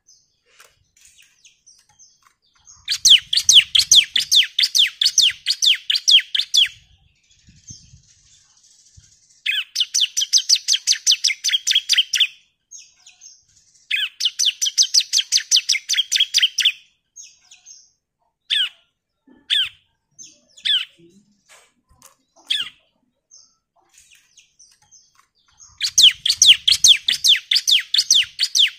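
Bar-winged prinia (ciblek) singing its long rapid song: four fast trills of repeated high chirps, each about three seconds long. Between the third and fourth trills come a few single sharp notes.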